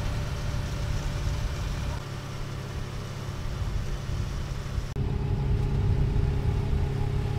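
A vehicle engine running steadily. About five seconds in the sound changes abruptly to a louder, steadier engine drone.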